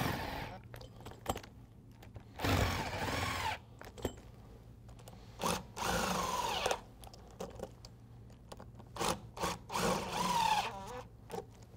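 Cordless drill with a socket spinning nuts down onto the bolts of steel conveyor-belt fastener plates, in several short runs of about a second each. The motor's pitch rises and falls with each run.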